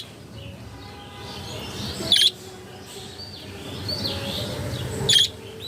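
Budgerigar chirping: two loud, short chirps, about two seconds in and again near the end, with fainter twittering between them.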